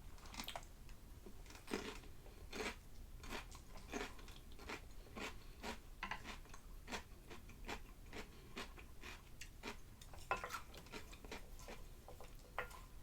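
Close-miked eating of a meal of instant noodles, fried eggs and cucumber: chewing, with many short crisp crunching clicks, about two a second, at an uneven pace.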